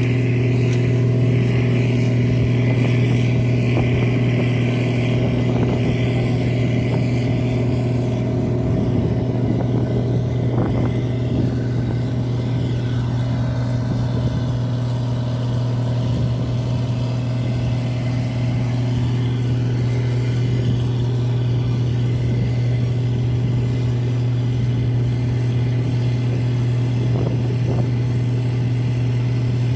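An engine idling with a steady, low, unchanging hum. A fainter, higher whine fades out over the first eight seconds or so.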